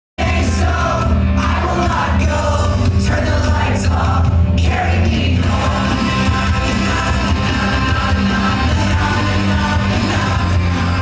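Music track with singing cuts in suddenly after silence, with a steady bass line.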